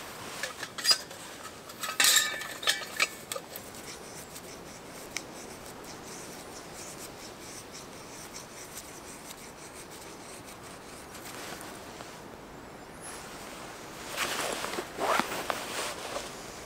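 Knife blade shaving thin curls off a wooden stick to make a feather stick: scraping strokes, loudest for about two seconds near the end. A few sharp knocks and handling sounds in the first three seconds, with a quiet steady hiss in between.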